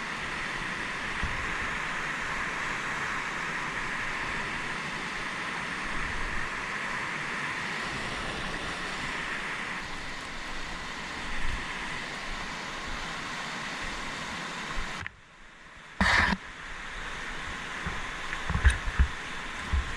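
Steady rush of a fast mountain river. It drops out briefly about three-quarters of the way in, then comes back with a short loud burst and a few knocks near the end.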